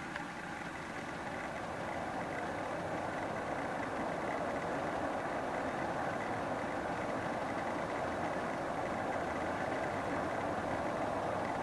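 Distant jet engines of a B-2A Spirit, its four General Electric F118 turbofans, running as a steady roar with a faint high whine. The noise grows slightly louder over the first few seconds, then holds.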